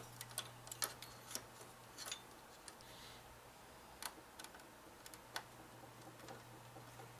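Faint, irregular small clicks and ticks of a screwdriver turning a mounting screw through a plastic case fan into a radiator, with the fan frame shifting in the hand, over a low steady hum.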